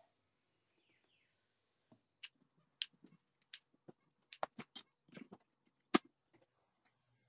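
Scattered clicks and clacks of hard plastic and metal handled while taking apart a battery flip clock: its battery cover and batteries coming out and being set down on a wooden bench. The sharpest knock comes about six seconds in.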